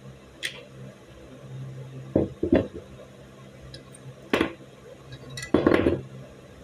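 Sharp metallic clicks and clinks of a Beretta 92FS 9 mm pistol being taken apart by hand: the slide, barrel and recoil spring knock against each other and the table. A small tick comes first, then two knocks, a single knock, and a quick cluster of clinks near the end.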